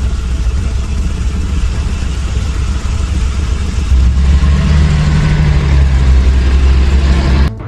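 Engine sound effect for a German half-track running steadily, growing louder about four seconds in as a second engine, a sidecar motorcycle's, joins it; it cuts off suddenly near the end.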